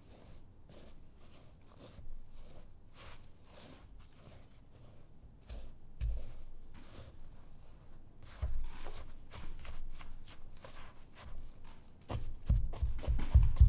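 A spatula stirring a dry flour and starch mixture in a glass bowl: irregular soft scraping and rustling strokes, with a few low bumps of the spatula against the bowl that come thicker near the end.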